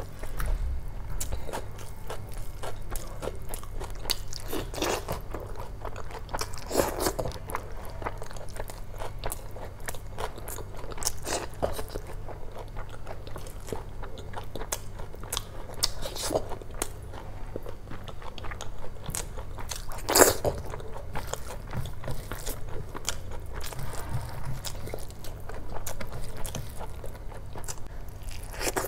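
Close-miked chewing of a mouthful of curry-soaked rice and chicken eaten by hand: wet, sticky mouth sounds and lip smacks in a quick run of clicks, with a few louder smacks, the loudest about two-thirds of the way through.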